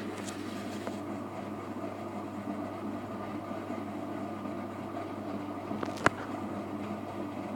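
Samsung Bio Compact washing machine running its rinse cycle: a steady mechanical hum from the drum and motor, with one sharp knock about six seconds in.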